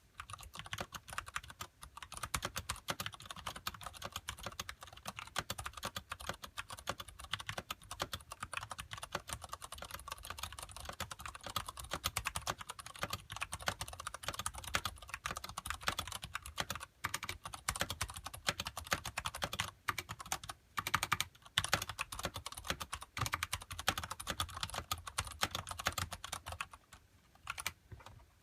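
Fast continuous typing on a Ducky Shine Mini mechanical keyboard with Cherry MX Brown switches and thick PBT keycaps, a dense run of keystroke clacks with brief pauses now and then and slowing near the end.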